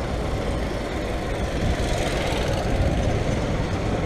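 Engine of a Mitsubishi Fuso light truck idling close by, a steady low running sound mixed with street noise.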